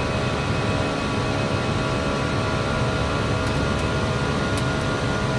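Steady cabin noise of an airliner's cockpit in flight: an even rush of airflow, engine and air-conditioning noise with several steady humming tones running through it.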